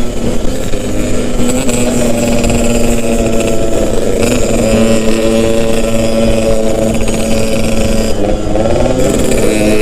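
Yamaha RX-King's 135 cc single-cylinder two-stroke engine running steadily under way; its pitch drops and climbs back again about eight seconds in.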